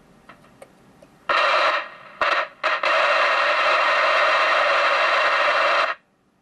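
Cobra 19 Plus CB radio's speaker hissing with static as a metal probe touches its antenna socket: a few faint clicks, then short bursts of hiss from about a second in, steady for about three seconds, cutting off sharply near the end. The noise picked up at the antenna input is the sign of a working receiver, whose own noise with nothing on the socket is almost zero.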